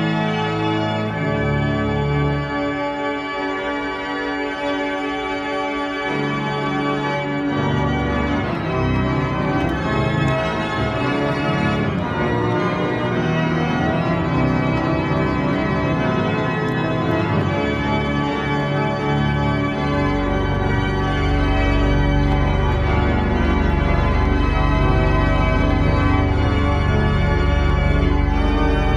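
Two-manual organ playing a Christmas medley in sustained chords. A deep pedal bass comes in about two-thirds of the way through and the sound swells a little.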